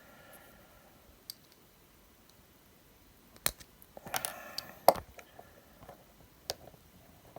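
A small screwdriver prying at the LED light strip's small plastic mounting clips: a few scattered sharp clicks, with a short creaky scrape of plastic about four seconds in and the sharpest click just after it.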